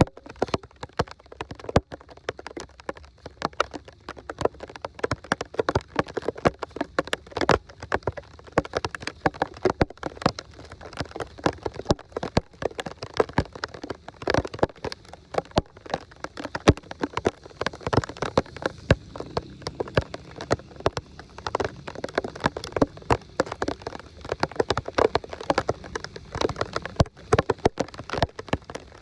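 Rain and splashing water: a dense, irregular patter of drops and splashes.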